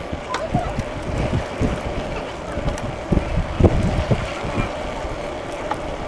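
Wind buffeting the microphone of a phone carried on a moving bicycle: an uneven low rumble with gusty thumps, under a faint steady hum.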